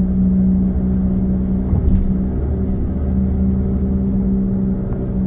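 Car driving at steady speed, heard from inside the cabin: a steady low rumble of engine and tyres on the road, with a constant hum.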